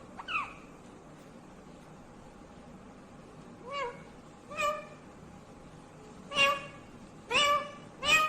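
Indian ringneck parrot giving a series of short calls, each rising and then falling in pitch. After a quiet spell of about three seconds, the calls come roughly once a second and grow louder toward the end.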